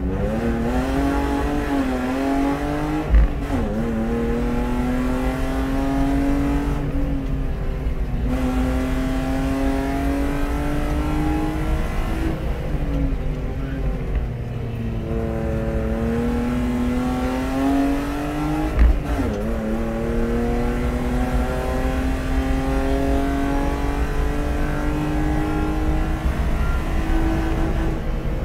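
BMW E36 320i's 2.0-litre straight-six race engine heard on board, pulling hard up a hillclimb. The revs climb and drop over and over through gear changes, with lifts off the throttle for bends. There are two short sharp knocks, one early and one past the middle.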